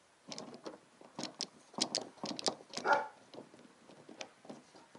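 Light metal clicks and knocks from a paintless-dent-repair mini lifter (glue puller) being handled and its height adjusted as it is set over a glue tab on a car body panel, with one brief louder sound about three seconds in.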